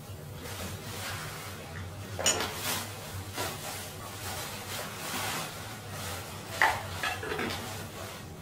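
A metal rice-cooker pot and its lid being handled, with two sharp clanks, one about two seconds in and another about two-thirds of the way through. Between them there is softer scraping and rubbing as rice is served out of the pot.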